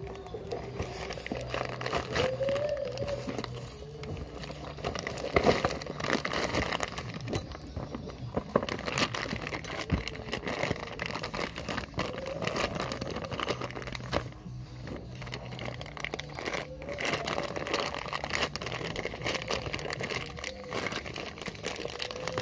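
Plastic parts bags crinkling and rustling as they are handled, with music playing in the background.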